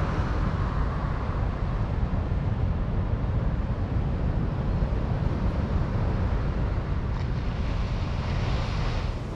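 Wind buffeting the microphone over a steady hiss of surf from breaking waves, with the wash swelling briefly near the end.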